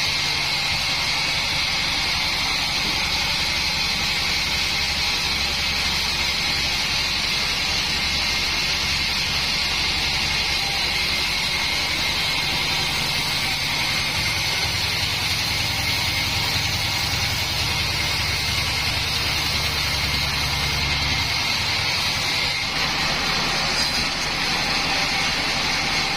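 Large band sawmill running steadily while sawing a mahogany log, with a steady high whine over a low machine rumble. The low rumble eases a little about three-quarters of the way through.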